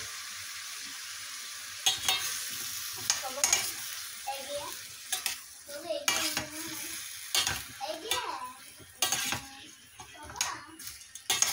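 Food for a green bean dish sizzling in oil in a pot while being stirred, the spoon knocking and scraping against the pot many times after the first couple of seconds.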